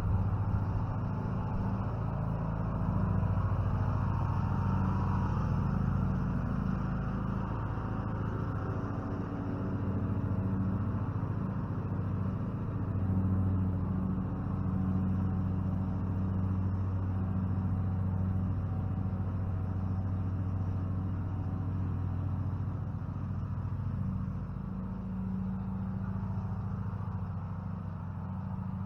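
An engine running steadily with a low drone, its level easing slightly near the end.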